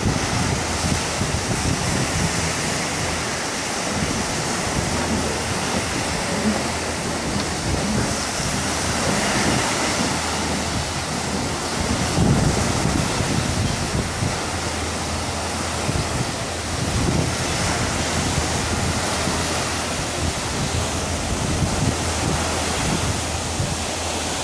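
Ocean surf washing steadily, with wind buffeting the microphone in low, gusty rumbles.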